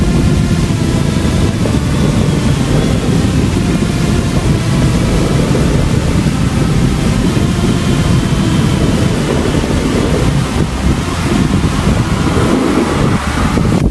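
Wind buffeting the camera's microphone as a snowboard rides down a groomed run, mixed with the board scraping over the snow: a loud, steady rushing.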